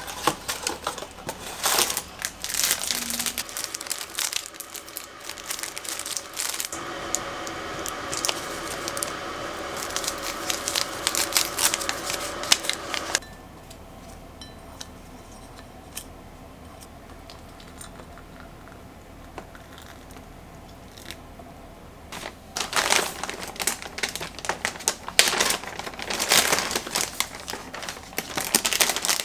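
Packaging crinkling and tearing as a tea box and tea-bag wrapper are opened. Then comes about six seconds of steady hot water poured into a glass mug, which stops abruptly. Near the end, a plastic bag of cookies crinkles loudly.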